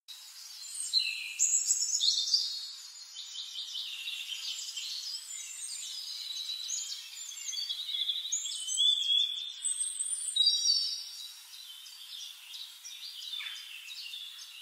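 Chorus of songbirds chirping and trilling, many short calls overlapping throughout.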